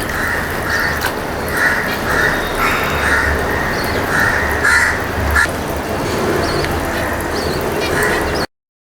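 A crow cawing repeatedly, a string of short harsh caws, with a few faint higher chirps later on. The sound cuts off abruptly near the end.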